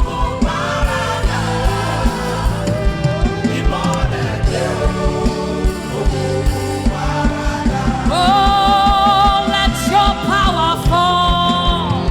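A gospel song in a church service: voices singing over a band with a steady drum beat and bass. About eight seconds in, a voice takes up long held notes with a wavering vibrato.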